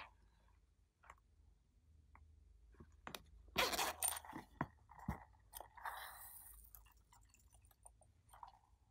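Small handling sounds from a rubbery silicone zip coin purse: a short zipper rasp about three and a half seconds in, then a few sharp clicks and a soft rustle of loose glitter sequins being tipped into a palm.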